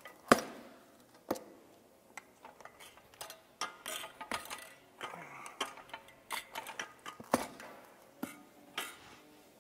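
Steel tire irons clicking and scraping against a dirt bike's spoked wheel rim as the tire bead is levered up over the rim, in irregular sharp metallic knocks, the loudest just after the start and about three-quarters through.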